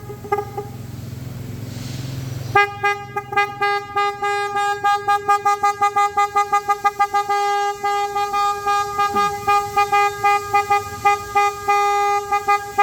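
Newly fitted car horn sounding. A brief toot at the start, then from about two and a half seconds in it is pressed over and over in rapid short blasts, about four a second, all at one steady pitch.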